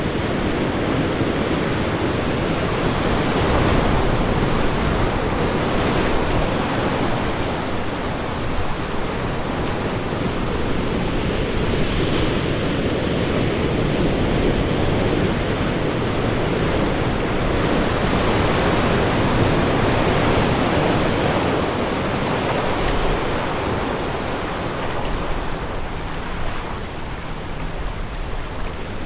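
Ocean surf breaking and washing in among shoreline rocks: a steady, continuous rush of water.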